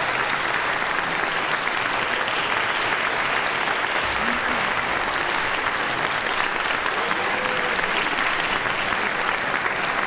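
Audience applauding steadily, with a few faint voices in the crowd.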